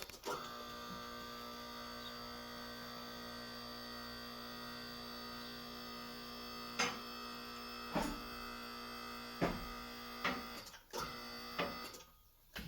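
Electric hydraulic pump motor of a Vevor TL5522 car lift running with a steady hum, raising the lift, with sharp clicks several times over the second half. The motor stops about a second before the end.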